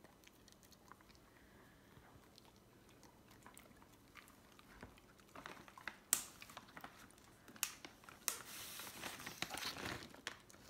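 A dog crunching and chewing a hard treat. It is faint at first, then sharp crunches come from about halfway through, with a longer stretch of chewing near the end.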